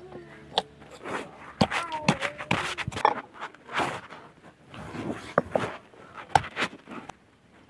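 Stone roller being rolled and pressed over lumps of jaggery on a flat stone grinding slab (ammi), making irregular knocks and gritty scrapes of stone on stone as the jaggery is crushed.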